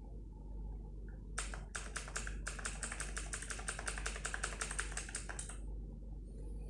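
Computer keyboard keys pressed in quick succession, a few separate taps and then a fast run of about eight keystrokes a second that stops near the end.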